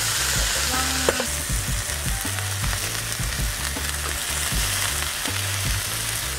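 Beef steaks sizzling steadily on a griddle pan over a portable gas stove, with a sharp tap of metal tongs on the pan about a second in.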